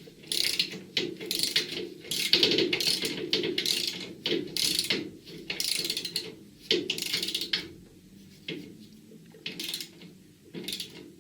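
Hand ratchet tightening a bolt, its pawl clicking in repeated strokes about two a second; the strokes thin out and grow fainter near the end as the bolt comes up tight.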